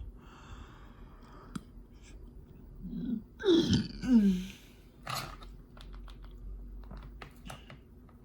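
Short wordless vocal sounds with a sliding pitch, loudest about three to four seconds in, over a faint steady hum. A few sharp clicks follow in the second half.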